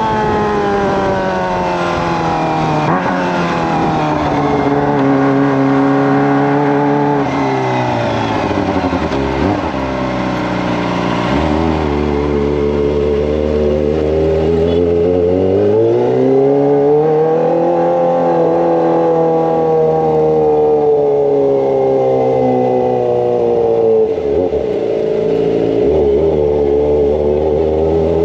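Kawasaki ZX-25R's 250 cc inline-four running through a Racefit Slash aftermarket exhaust while riding. The engine note falls away for the first several seconds, climbs steadily as the bike accelerates, then drops and picks up again near the end.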